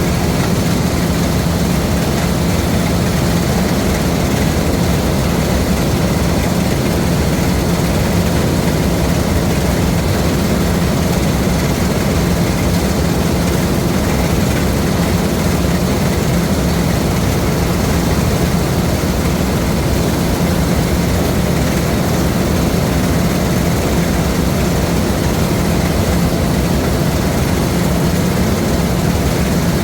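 LOVOL RG130 EVO rice combine harvester running, a loud steady engine drone with a strong low hum that holds constant.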